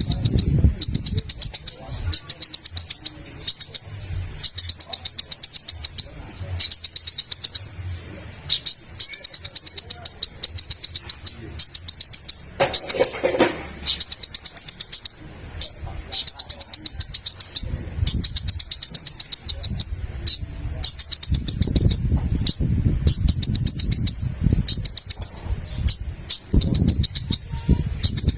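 Sogok ontong (sogon) bird singing hard: rapid high-pitched chirping phrases repeated again and again, each about a second long with short breaks between.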